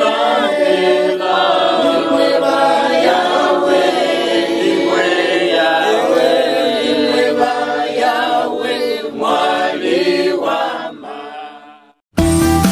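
A group of people singing together without instruments, the voices fading out about eleven seconds in. After a brief silence, background music with a bass line starts near the end.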